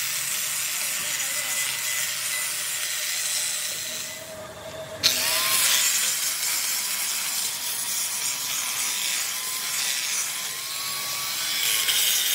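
Handheld angle grinder grinding the metal of a large compressor piston: a steady hiss of the disc on metal over the motor's whine. About four seconds in it eases off briefly, then a sharp click and the motor's rising whine as it bites and grinds on.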